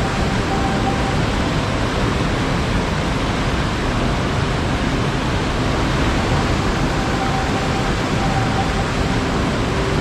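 Waterfall rushing steadily: a loud, unbroken wash of falling water with no pauses or changes.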